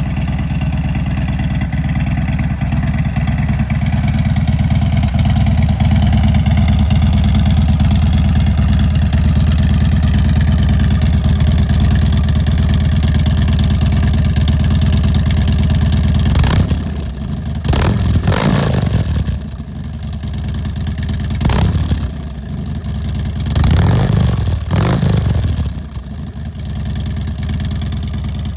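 Harley-Davidson Dyna Street Bob's air-cooled Twin Cam V-twin idling through a Cobra El Diablo 2-into-1 exhaust, then revved in several short throttle blips in the last ten seconds or so, each dropping back to idle.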